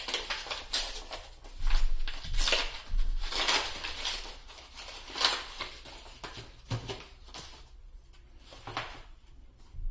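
Foil Yu-Gi-Oh booster pack wrappers crinkling and cards being handled, an irregular run of crackling and rustling, loudest from about a second and a half to three and a half seconds in.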